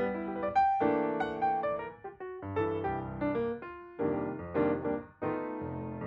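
Background music played on piano: a melody of struck notes with chords, with short pauses about two seconds and five seconds in.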